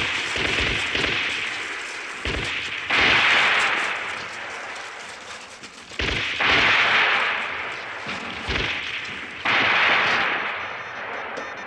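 Battle gunfire: scattered rifle shots, with a loud burst of firing about every three seconds that starts suddenly and slowly dies away.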